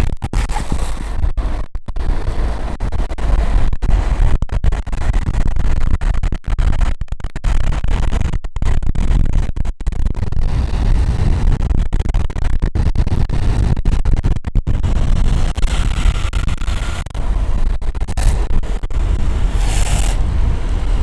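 Wind buffeting a moving camera's microphone at downhill speed, heavy and distorted, cutting out briefly many times, with the rumble of longboard wheels on asphalt. Near the end come two brief hissing scrapes, typical of urethane wheels sliding sideways on the road.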